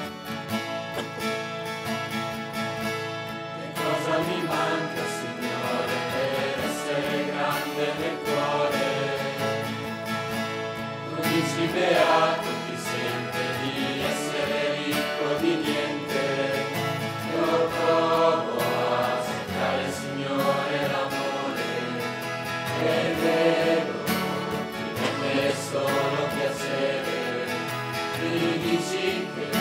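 Mixed choir of young voices singing a church hymn with strummed acoustic guitar accompaniment. The guitar plays alone at first, and the voices come in about four seconds in.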